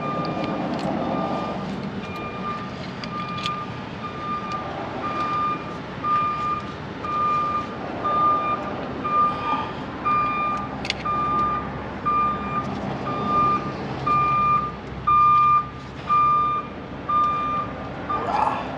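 Vehicle backup alarm beeping steadily at about one beep a second, swelling louder toward the end, over a steady background hum.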